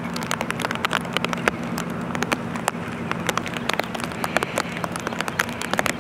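Rain falling steadily, with many sharp, irregular drops tapping on a hard surface close by, over a steady low hum.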